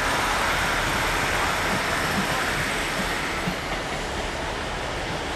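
Diesel multiple unit running over the station approach tracks, its wheels clicking regularly over rail joints. The sound fades somewhat after about three seconds as the train moves away.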